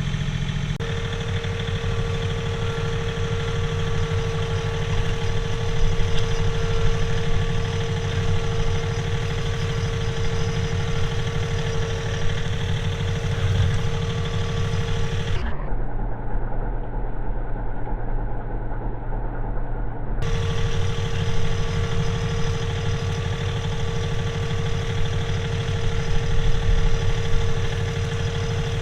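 John Deere 3039R compact tractor's three-cylinder diesel running steadily while pulling a middle buster through potato rows, with a steady whine over the engine. For about five seconds past the middle the sound turns duller, with the whine gone, then returns.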